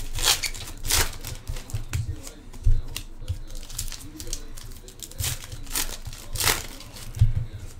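Panini Prizm hobby pack wrappers being torn open and crinkled by hand, a ragged run of crackles and rips, with a couple of dull thumps.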